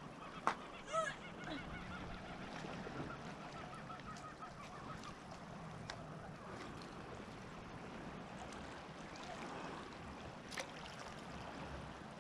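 Birds calling with short honking notes in the first few seconds, trailing off into a quick run of fainter notes. Two sharp clicks stand out, one about half a second in and one near the end, over faint background noise.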